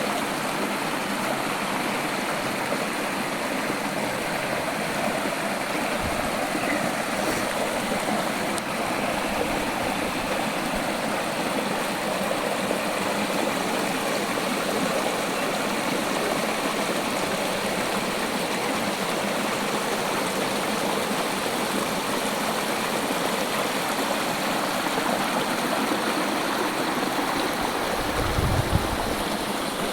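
Running water flowing steadily, with a brief low thud near the end.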